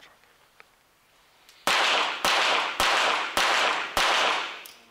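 A five-shot rapid-fire series from a .22 Short rapid-fire target pistol: five sharp shots a little over half a second apart, starting nearly two seconds in, each ringing on in the echo of the indoor shooting hall.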